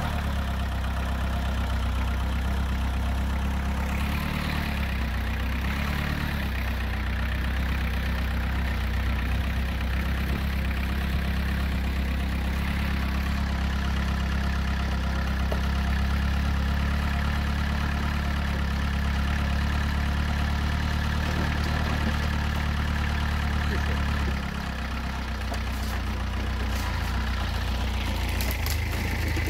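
Quad bike (ATV) engine running steadily as it is ridden. About 24 seconds in, its note drops and it gets a little quieter.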